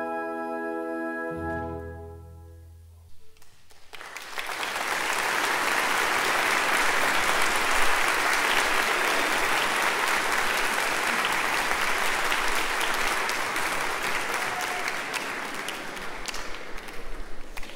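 A full orchestra's long closing chord of a movement dies away about two seconds in. After a brief hush the audience applauds steadily, the clapping thinning out near the end.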